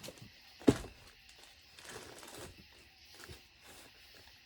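Workbench handling noises: one sharp knock about two-thirds of a second in, then faint rustling and a few small clicks of tools and parts being moved.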